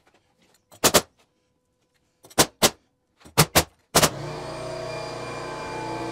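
A framing nail gun firing into 2x4 studs: several sharp shots, some in quick pairs, over the first four seconds. Then a motor runs with a steady hum for the last two seconds.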